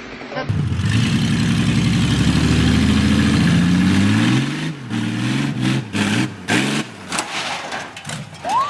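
An engine running hard and steady, then its pitch wavering and dropping after about four and a half seconds, followed by a run of sharp cracks and snaps.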